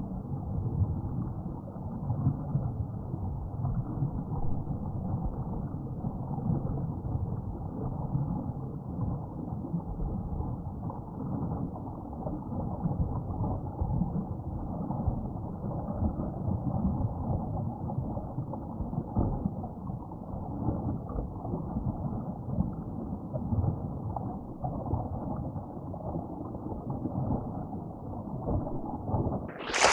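Waterfall's steady rumbling roar of falling water, with no distinct events. Just before the end a louder, brighter rush of noise cuts in.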